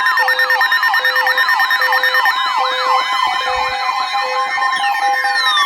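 Several electronic sirens sounding at once: a fast up-and-down wail at about three sweeps a second over steady alert tones and a low beep pulsing on and off. Near the end, long tones start sliding downward as the sirens wind down.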